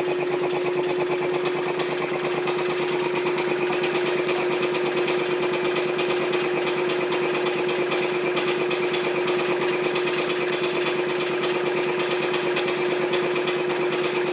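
1948 Brunner 2 hp air compressor running steadily, its piston pump chugging in a fast, even rhythm over a constant hum.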